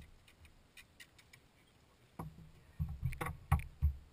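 A landed largemouth bass flopping on a bass boat's carpeted deck: a run of dull thumps with a few sharp knocks, starting about two seconds in, a few per second.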